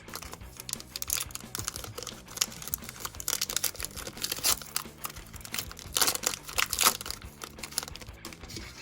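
Foil wrapper of a Pokémon booster pack being torn open and crinkled in the hands: a run of crackling rustles and tearing, loudest about six to seven seconds in.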